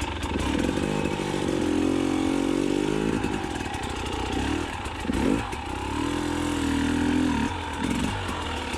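2020 KTM 300xc TPI's single-cylinder two-stroke engine revving up and down unevenly as the dirt bike is ridden through rough trail terrain.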